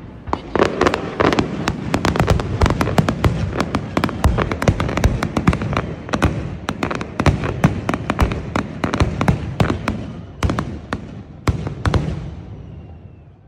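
Fireworks display: a dense, fast run of bangs and crackling from shells bursting overhead, thinning out near the end to a few single loud reports and then fading.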